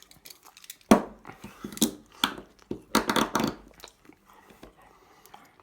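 Handcuff lock being picked with a homemade tension tool: small metal clicks and scrapes, with a sharp click about a second in and a dense run of clicks and rattles around three seconds in.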